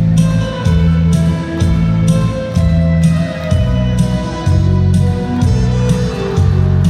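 Instrumental trot backing music with strong bass and a steady beat of about two beats a second, without singing.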